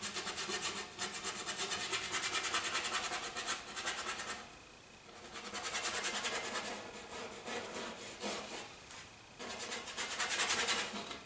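A No. 4 Rosemary brush scrubbing oil paint in quick back-and-forth strokes, a dry, scratchy rubbing, stopping briefly about four seconds in and again near the end before starting up once more.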